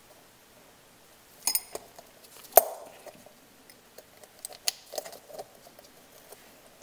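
Small metal parts of a damper and stepper-motor assembly clicking and clinking as they are fitted back together by hand: a few sharp clicks, the loudest about two and a half seconds in, then a short cluster near the end.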